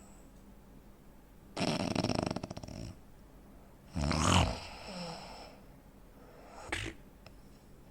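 A man snoring heavily, with a fluttering, rattling snore about a second and a half in, a louder snort at about four seconds, and a short snort near the end. This is the snoring with breathing pauses typical of sleep apnea.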